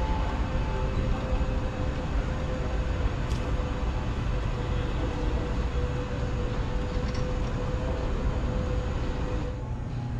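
Steady rumbling room noise of a large indoor exhibition hall, with a faint steady hum running under it. The noise shifts abruptly near the end.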